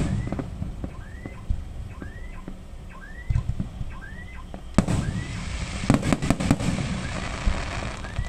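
Aerial fireworks shells bursting: a bang at the start, another about five seconds in, then a quick run of bangs followed by crackling. Under them a faint short chirp repeats steadily, well under a second apart.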